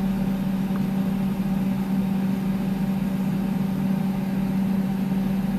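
Steady low hum with one strong unchanging low tone and fainter tones above it.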